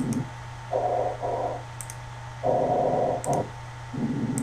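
Computer mouse clicks, each setting off a short snatch of a recorded lung sound from an auscultation simulator. There are about four airy breath sounds of half a second to a second each, alternating between lower and higher in pitch, cut short as the next region is clicked.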